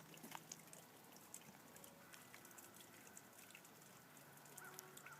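Near silence, with faint scattered ticks over a low hiss.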